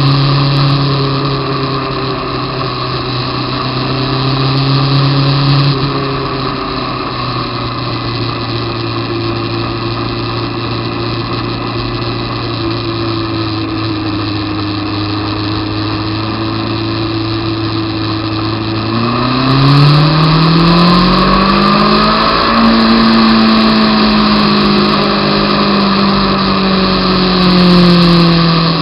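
Honda CBR600 F2's inline-four engine running at a steady cruising pitch, easing off slightly about six seconds in, then revving up sharply about two-thirds of the way through as the bike accelerates, and holding high revs before dropping back a little near the end.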